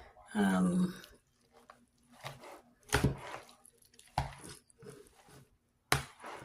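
Chicken salad being mixed in a bowl: soft squishing with scattered sharp clicks, the loudest about three and six seconds in.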